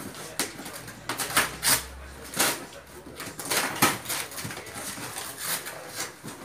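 Cardboard boxes being opened and rummaged through by hand: irregular knocks, scrapes and rustles of cardboard flaps and packaging, a dozen or so short clatters.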